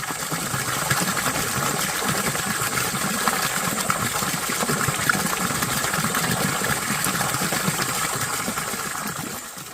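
Mountain stream water flowing over rocks, a steady rushing and babbling that fades in at the start and dies away near the end.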